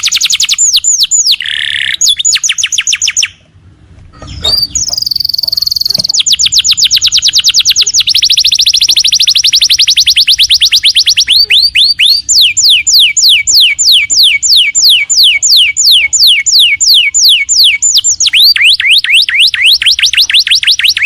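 Domestic canary singing in long, rapid trills of repeated down-sweeping notes, about ten a second, with a brief break about three seconds in.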